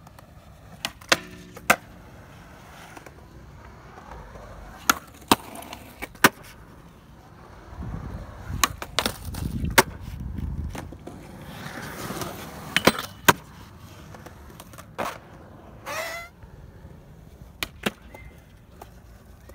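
Skateboard on concrete: wheels rolling with sharp wooden clacks of tail pops, landings and board slaps, about fifteen in all. A louder stretch of rolling and scraping comes about halfway through, and a short rising squeak a little after.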